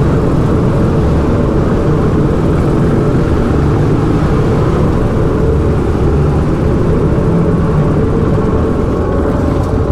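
Dirt bike engine running steadily at low revs while the bike rolls through a low concrete tunnel.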